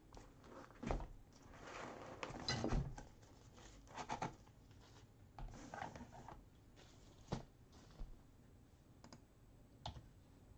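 Faint, scattered light clicks and taps, with a short stretch of rustling about two seconds in.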